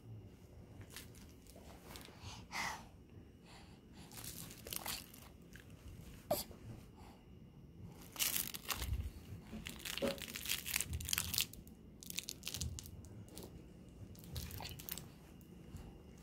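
Scattered rustling, crinkling and soft clicking handling noises, busiest about halfway through.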